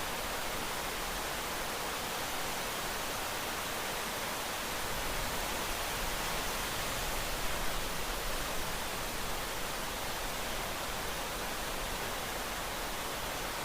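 Steady rain sound effect: an even, unbroken hiss of falling rain.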